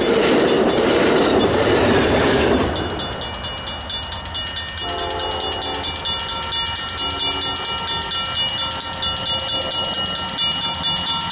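Amtrak passenger train rushing past for the first couple of seconds, then a grade-crossing warning bell ringing in rapid, even strokes as the train noise falls away. A train horn sounds twice in the distance about halfway through.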